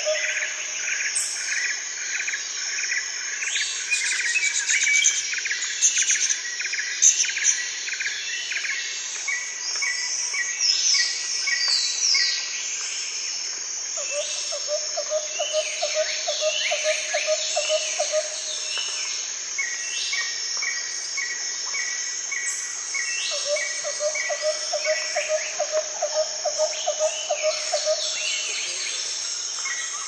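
Rainforest ambience: many birds calling and chirping over a steady high insect buzz. A low rapid trill repeats in runs of a few seconds, at the start, in the middle and near the end.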